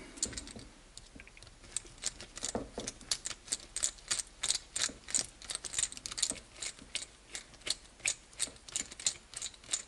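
Multitool screwdriver rattling as it is worked against the model's chassis: a run of sharp clicks, about three or four a second at an uneven pace, starting about two seconds in.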